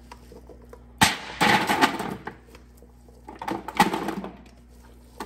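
Diced chicken, potatoes and broccoli scraped from a stainless steel mixing bowl into a baking dish with a silicone spatula. There is a sharp knock about a second in, then two bouts of scraping and tumbling food with small clatters of the bowl against the dish.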